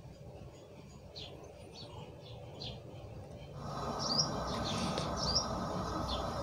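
Small birds chirping in short repeated calls. About three and a half seconds in, a steady rushing noise starts under them and becomes the loudest sound.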